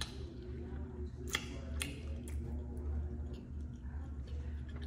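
Close-miked chewing of barbecue chicken wings, with a few sharp wet mouth clicks and lip smacks, the clearest about a second and a half in, over a steady low hum.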